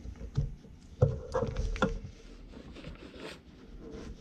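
Steel chisels and punches of a jumbo punch and chisel set being handled in their roll-up pouch: several knocks as the tools are moved and set in their pockets, the loudest about a second in, with the pouch rustling in between.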